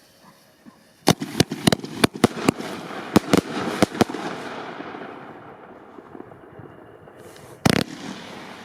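Bonfireworks 'Silver Ice' firework going off: after a second of quiet, a quick series of about a dozen sharp bangs over a crackling hiss that slowly dies away, then one more loud bang near the end.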